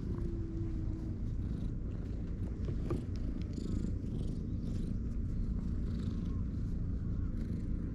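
Stray cat purring steadily close by while being stroked.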